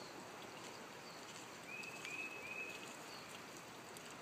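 Faint steady trickle of water, typical of a garden pond's water feature, with three quick chirps from a bird about two seconds in.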